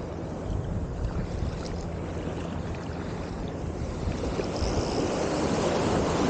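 Surf washing and breaking around the angler's legs, with wind buffeting the microphone; a wave surges in louder near the end.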